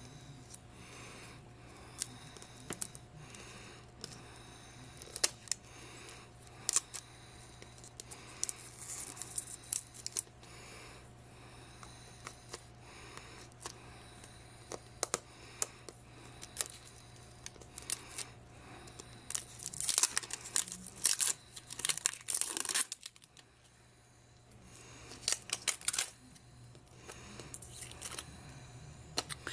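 Tight plastic shrink wrap being picked at and peeled off a plastic capsule ball by hand: scattered sharp clicks and crinkling, with louder stretches of tearing and crackling about eight seconds in, again around twenty seconds, and once more near the end.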